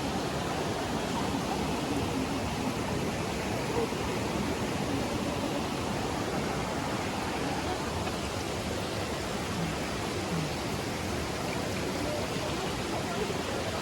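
Steady rush of mountain water in a gorge, an even hiss with no break or change.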